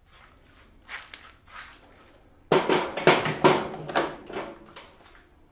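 Hard plastic cordless drills and batteries being handled and swapped: a couple of faint knocks, then from about two and a half seconds in a quick, irregular run of clacks and rattles that dies away near the end.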